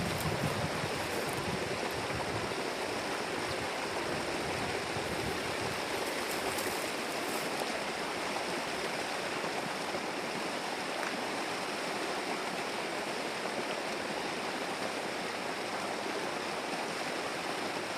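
River water running steadily over rocks, a constant rushing hiss. A low rumble at the start dies away in the first two seconds.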